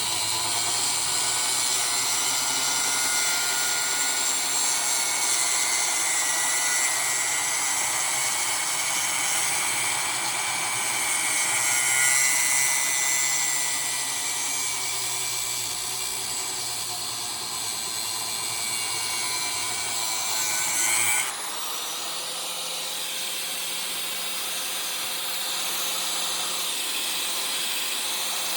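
Angle grinder cutting into the metal of a window air-conditioning unit, a continuous whine with a hiss of grinding. About two-thirds of the way through, the motor's pitch rises and then holds steady, higher.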